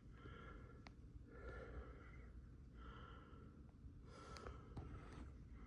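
Near silence: room tone with a few faint breaths.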